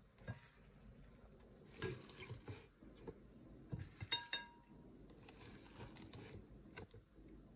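Fresh coriander leaves rustling as they are pushed by hand into a plastic blender cup, with soft handling noises and a light ringing clink about four seconds in.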